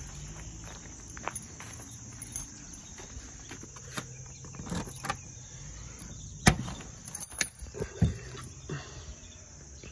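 A key rattling and turning in a door's deadbolt, with the door handled, a string of sharp clicks and knocks, the loudest about six and a half seconds in. Steady high insect chirring goes on underneath.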